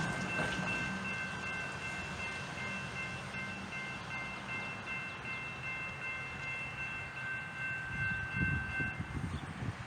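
Diesel locomotive's air horn sounding one long, steady chord of several notes that cuts off about nine seconds in, over the low rumble of the passing train.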